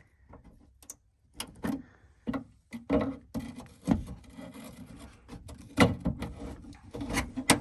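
A screwdriver knocks and scrapes against hard plastic inside a car's rear door, chipping it away. The knocks are sharp and irregular, about ten in all, with scraping between them.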